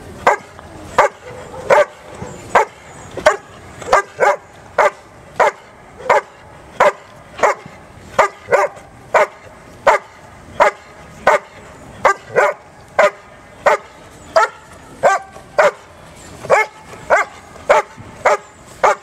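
Black shepherd dog barking steadily and rhythmically, about one bark every three-quarters of a second. This is the bark-and-hold of Schutzhund (IPO) protection work: the dog has found the helper in the blind and holds him there by barking without biting.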